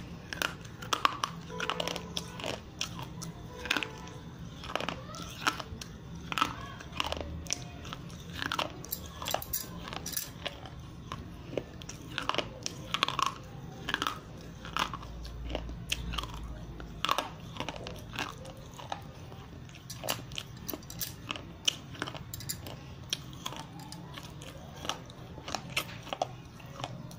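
Slate pencil being bitten and chewed close to the microphone: a dense run of irregular sharp crunches and snaps.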